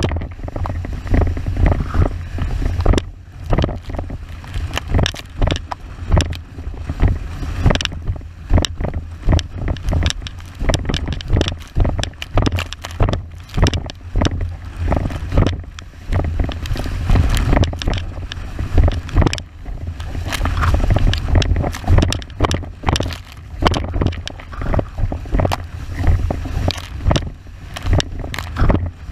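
Wind buffeting the microphone with a heavy low rumble, over rushing water and the frequent, irregular slaps of an 81-litre wave windsurf board planing fast over chop.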